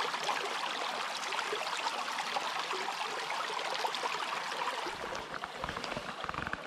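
Small rocky stream running fast over stones close by, a steady rush of shallow riffle water.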